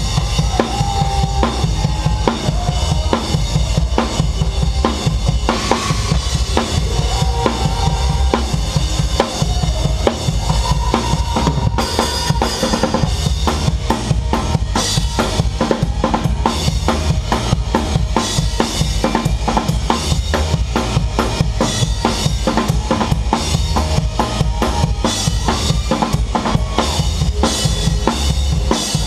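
Live rock band playing, with the drum kit loudest: kick drum and snare driving a steady beat with cymbals over it, the rest of the band underneath.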